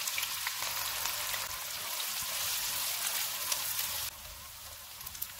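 Sliced onions sizzling in hot oil in a wok: a dense hiss full of small crackles, dropping suddenly to a quieter sizzle about four seconds in.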